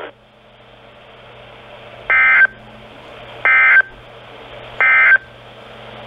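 A NOAA Weather Radio receiver's speaker plays three short, shrill digital data bursts about a second and a half apart over a steady radio hiss. They are the SAME end-of-message code that closes a broadcast alert.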